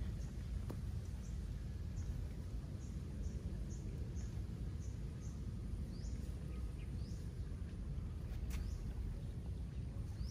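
A small bird repeatedly chirping: short high calls about two a second at first, then a few rising calls farther apart, over a steady low outdoor rumble.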